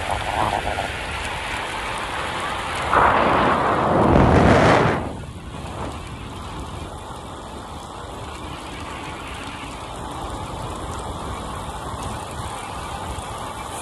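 Steady wind and road noise on a camera microphone during a bicycle ride, with a much louder rush about three seconds in that cuts off sharply after about two seconds.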